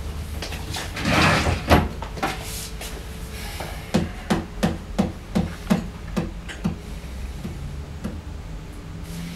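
A short scraping rustle about a second in, then a run of about eight dull knocks on wood, roughly three a second.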